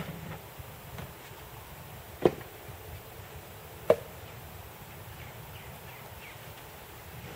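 Two sharp knocks about a second and a half apart, over a steady background hiss.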